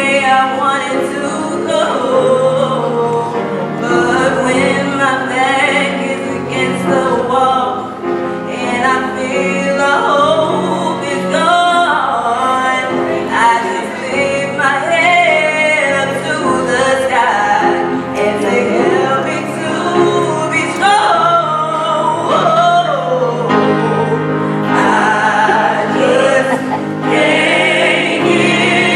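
A gospel song sung over instrumental accompaniment, with melodic vocal lines above held low notes.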